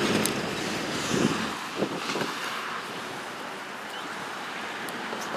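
Wind rushing on the microphone, with a few soft knocks about a second or two in as the horn button's strap is handled on the bicycle handlebar.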